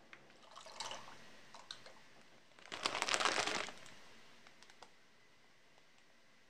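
Dry penne pasta going into a pot of simmering soup: a handful drops in with light splashing about a second in, then a louder rush of pasta tipped from a crinkling plastic bag around three seconds in, followed by a few small clicks.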